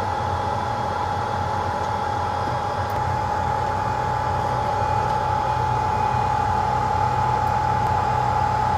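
Zhuomao ZM-R5860D BGA rework station running, its hot-air blowers giving a steady rush of air with a constant whine and a low hum while it heats the board from above and below to melt the processor's ball-grid solder.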